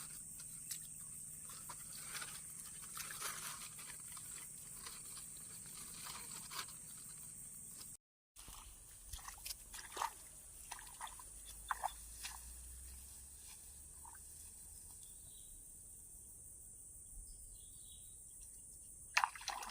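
Steady high-pitched insect drone over the paddy, with scattered light clicks and knocks. The sound cuts out completely for a moment about eight seconds in.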